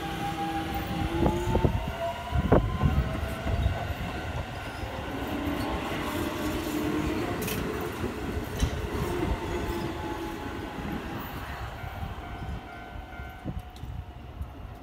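Keio Line electric commuter train running past: the traction motors whine in several tones that shift in pitch, over a steady rumble of wheels on rail. A quick run of clacks from the wheels over rail joints about two to three seconds in is the loudest part, and the sound fades near the end.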